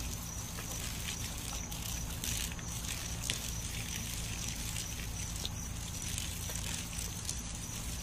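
Water spraying from a garden hose: a steady hiss.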